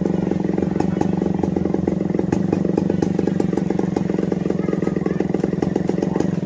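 Two-stroke chainsaw running at high throttle, ripping a Narra log lengthwise into a one-inch board. The engine note holds steady throughout.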